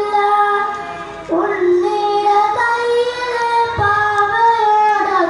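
A boy singing a Malayalam poem into a handheld microphone, in long held notes that step up and down in pitch.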